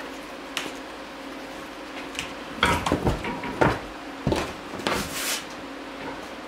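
A run of knocks and clatters from wood pieces and tools being handled and set down on a workbench, bunched in the middle few seconds, over a steady low hum.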